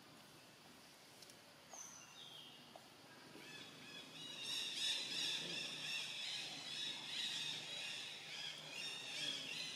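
Birds chirping: a few isolated high chirps at first, then from about four seconds in a dense, continuous chorus of many overlapping chirps.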